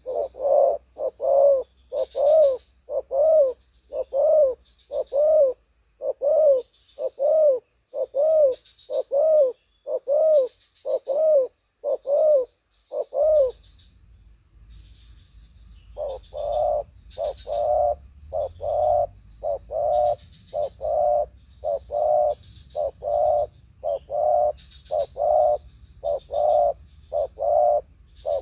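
Spotted doves cooing: an even, rapid series of low coos, a little more than one a second, that breaks off for about three seconds midway and then resumes.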